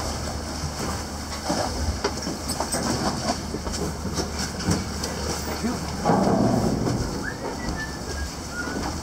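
Steady low hum of a vessel's machinery, with scattered knocks, clicks and rustling as hands work at a diver's drysuit, and a louder stretch of rustling noise about six seconds in.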